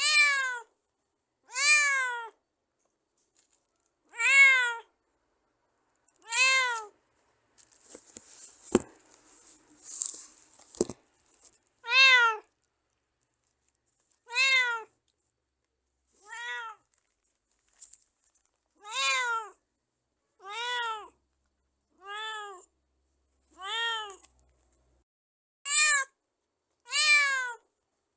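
A domestic cat meowing over and over, one short rising-then-falling meow every second or two. A pause near the middle is filled with rustling and two sharp clicks.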